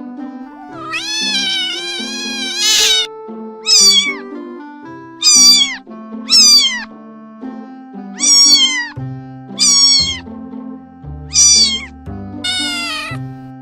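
A domestic cat meowing over background music: one long, wavering meow in the first few seconds, then seven short meows spaced about a second apart, each falling in pitch.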